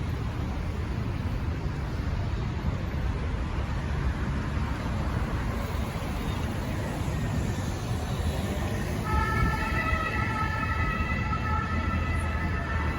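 City street traffic rumbling steadily; about nine seconds in, an emergency-vehicle siren's high tones come in over it.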